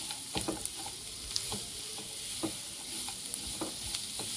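Chopped onions, garlic and green chillies sizzling in oil and butter over a high gas flame, with irregular scrapes and taps of a spoon against the pan as they are stirred.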